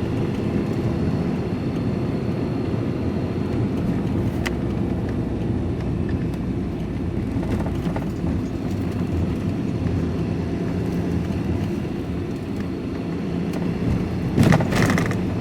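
Van engine and tyre noise heard from inside the cab while driving, a steady low drone. There is a brief louder clatter near the end.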